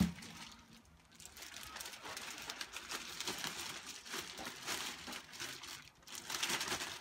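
Thin plastic shrink-wrap bag crinkling and rustling in irregular bursts as it is pulled up over a dressed piglet carcass, loudest near the end.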